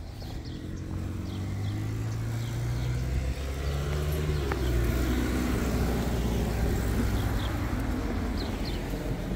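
A motor vehicle driving past on the street, its engine sound building up and then fading, loudest about halfway through.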